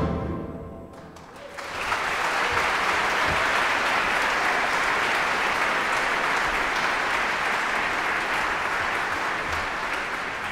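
A concert band's final chord dies away in the hall's reverberation, then an audience applauds steadily from about a second and a half in, tailing off slowly near the end.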